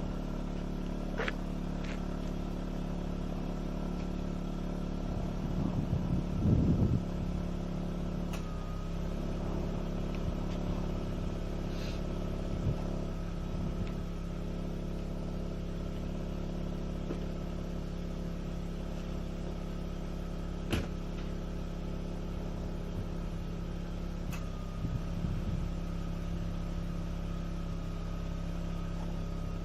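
Mazda RX-8's two-rotor Renesis rotary engine idling steadily with Seafoam cleaner in its fuel, the smoky decarbonising run. It swells briefly louder a couple of times, and there are a few faint clicks.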